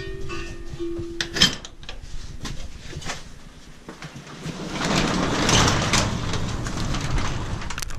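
Sectional garage door rolled open, its rollers rumbling and rattling along the steel tracks; a knock or two first, then the rumble swells a few seconds in and eases off.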